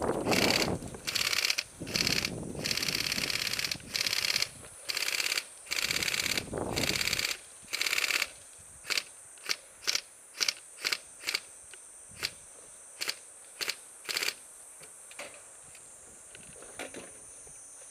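Airsoft electric AK rifle firing: a run of full-auto bursts for the first several seconds, then about a dozen quick single shots. A steady high chirring of insects runs underneath.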